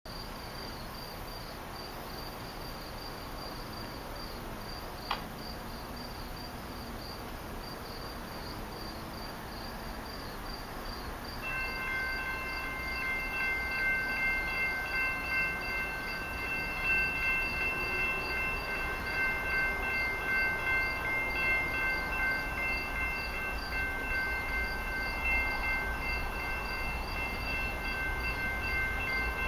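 Horn of an approaching CN freight locomotive sounding a long, steady multi-note chord that starts about twelve seconds in and holds with barely a break, over a low rumble of the oncoming train that grows louder toward the end.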